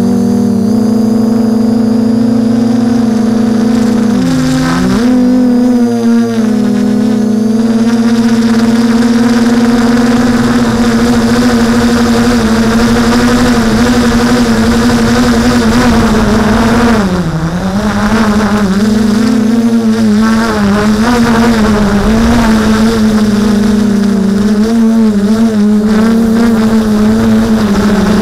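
Drone's electric motors and propellers, recorded from its own onboard camera: a loud, steady buzzing hum whose pitch dips briefly twice, about four seconds in and again around seventeen seconds.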